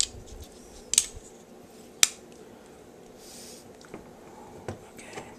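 Sharp clicks and taps of diecast and plastic robot toy parts being handled and set on a wooden table: three distinct clicks about a second apart, a soft rustle, then two fainter clicks near the end.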